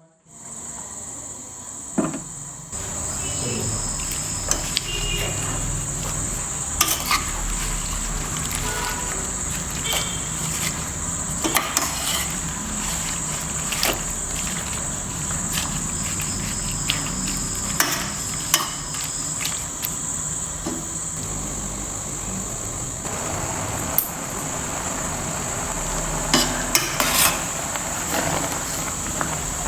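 A metal spoon stirring in a pan and clinking against it now and then, over a steady high hiss of something cooking.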